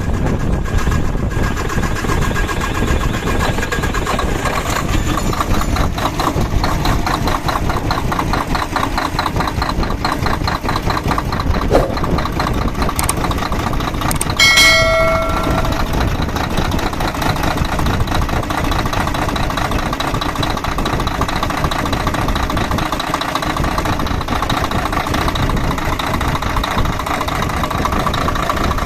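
Mercedes-Benz Actros truck diesel engine running at a steady idle on its freshly replaced injectors, during a test run after a complaint of low power and white smoke. A short pitched beep sounds briefly about halfway through.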